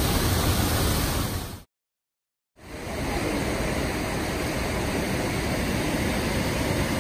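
Steady rushing of water pouring over an overflow weir, cut off completely for just under a second about two seconds in before resuming.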